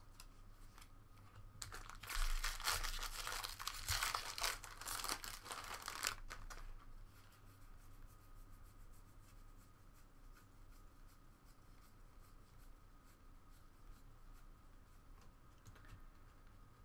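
Foil trading-card pack wrapper being torn open and crinkled, a crackly tearing noise that starts about two seconds in and stops after about five seconds. Faint soft clicks of cards being handled follow.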